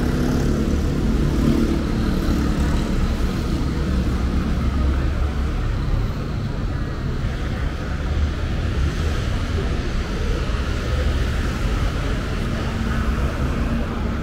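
Downtown street ambience: a steady low traffic rumble, with people's voices in the background.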